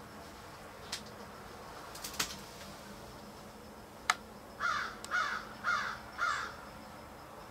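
A crow cawing four times in quick succession, harsh calls about half a second apart, after a few sharp clicks.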